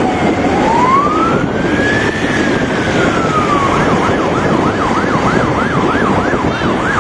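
Emergency-vehicle siren: a slow wail that dips, rises and falls again, then switches about halfway through to a fast yelp of two or three rises a second. Underneath is the steady rumble of road and engine noise from the moving convoy.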